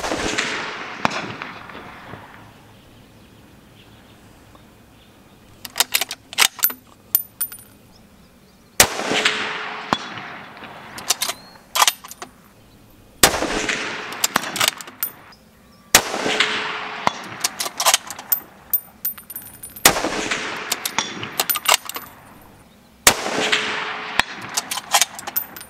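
Six shots from a bolt-action precision rifle, each a sharp crack that dies away in echo over about two seconds, the first alone and the rest every three to four seconds. Between shots come quick runs of sharp metallic clicks as the bolt is worked to chamber the next round.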